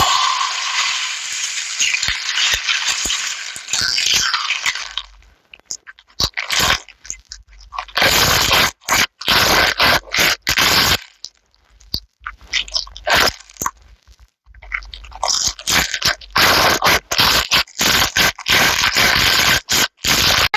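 Slime being squeezed and pressed in the hands, crackling and crunching. A dense spell of crackling lasts about five seconds, then comes in short spells with gaps, and turns dense again near the end.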